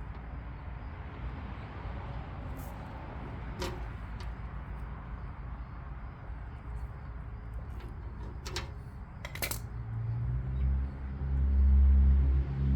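A few sharp clicks and rattles of small parts being handled, over a low rumble. About ten seconds in, a vehicle engine rumble grows and becomes the loudest sound near the end.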